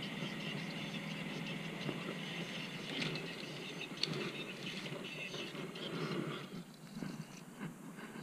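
Golf cart riding along a bumpy dirt path, a steady running noise with a couple of sharp knocks about three and four seconds in, under a high, steady insect buzz. Both drop away about six and a half seconds in, leaving quieter, patchy noise.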